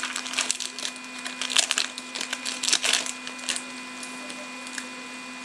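Hand-handled foil hockey-card pack and cards: the wrapper crinkles and the cards are flipped through, a quick crackling rustle that thins out after about three and a half seconds. A low steady hum runs underneath.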